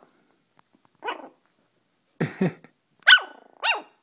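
Morkie-poo puppy, under four weeks old, yipping. A soft yip comes about a second in, then two short low gruff barks, then two loud high yips near the end that rise and fall in pitch.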